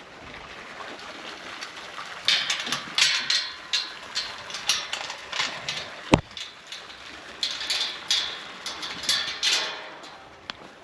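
Irregular crunching and rustling, like steps on a rough floor, about three a second, with a single sharp click about six seconds in.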